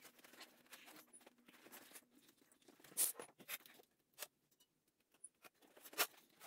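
Quiet room noise with a few sharp knocks, the loudest about three seconds in and again near the end.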